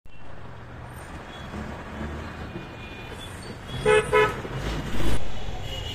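Road traffic noise with two short, quick beeps of a vehicle horn about four seconds in, followed by the low rumble of a passing vehicle.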